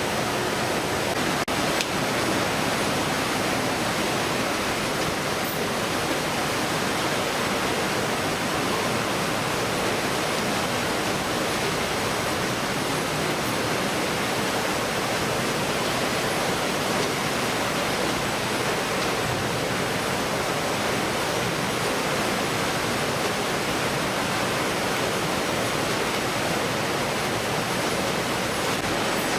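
Steady, even rushing noise with a faint high whistle-like tone held underneath.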